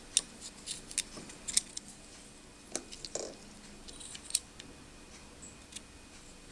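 Scattered light clicks and scrapes as a 3-volt coin-cell battery is handled and set in a caliper's jaws to measure its thickness.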